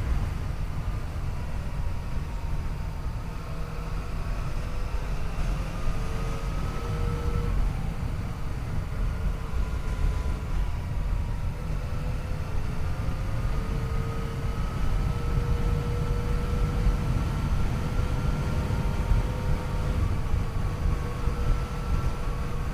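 Yamaha FJ-09's three-cylinder engine running at a steady cruise, its pitch drifting slowly up and down, under a heavy, even wind rumble on the microphone of the moving motorcycle.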